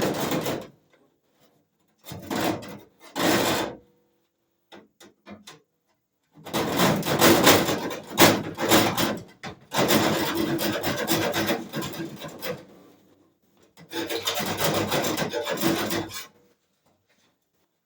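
Hacksaw blade worked back and forth by hand, cutting in several spells of rapid rasping strokes with short pauses between, the longest spells in the second half.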